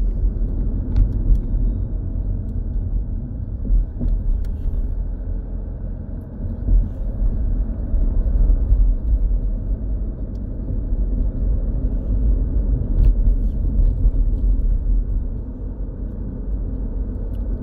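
BMW 420d Gran Coupé's four-cylinder diesel running hot, with a steady low rumble and a few faint clicks. The car is in the warm state in which its owner hears a 'clong' noise.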